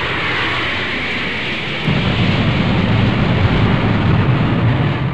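Aircraft crash sound effect: a loud rushing noise with an engine whine falling in pitch, which gives way about two seconds in to a heavy low rumble.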